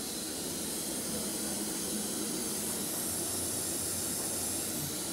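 Bathtub faucet running, water pouring from the spout into a tub of bubble-bath foam as a steady, even rushing hiss.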